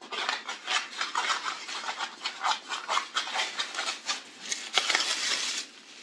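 Packaging rustling and scraping as items are rummaged out of a box, in quick irregular strokes that drop away briefly near the end.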